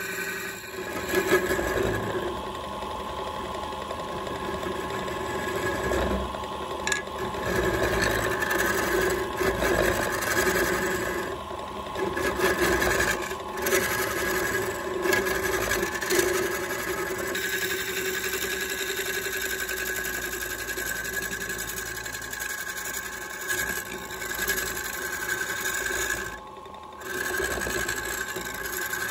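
Wood lathe motor running with a steady hum and whine while a hand-held turning chisel scrapes and cuts into the inside of a spinning wooden vessel. The cutting noise drops out briefly a few times.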